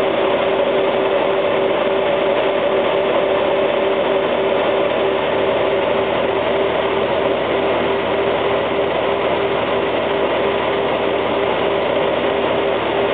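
A Honda Gold Wing GL1800's flat-six engine running steadily at low speed, heard from a handlebar-mounted camcorder as a constant hum under an even hiss of wind and road noise.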